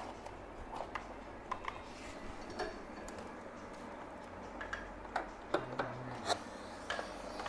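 Hands handling a National RS-4350 boombox's cabinet: scattered light clicks, taps and rubbing as the set is tipped onto its side.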